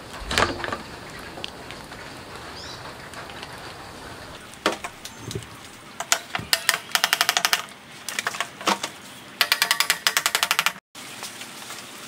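A knock as the compressor pump rig is set down on a wooden board, then two runs of rapid, evenly spaced crackling ticks, about ten a second, from tape being pulled off its roll and wound around the end of a PVC pipe.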